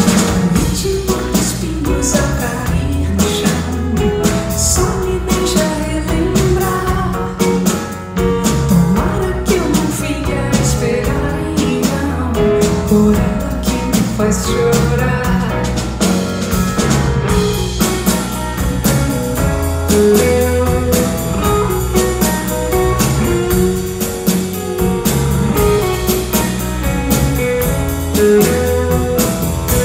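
Live pop-rock band performance: a woman sings the lead melody over electric guitars, bass and a drum kit with a steady beat.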